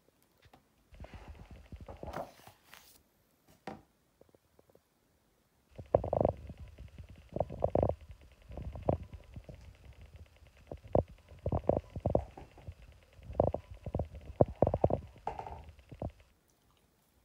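Handling noise of a hardcover photo book and the phone filming it: irregular low thumps, knocks and rubbing, denser after a short quiet gap, as pages are turned.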